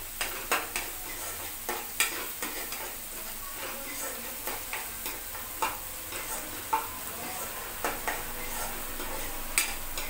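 A spatula scraping and knocking against a frying pan in irregular strokes as chopped onions are stirred, over a steady sizzle of frying in hot oil.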